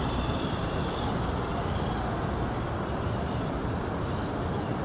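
Steady rush of water over river shoals, an even noise with no pauses. A faint high whine sounds for about the first second and a half, then fades.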